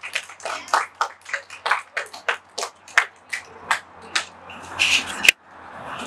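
A small group of people clapping, separate claps coming irregularly several times a second. Just after five seconds in, a sharp click, and the clapping cuts off abruptly.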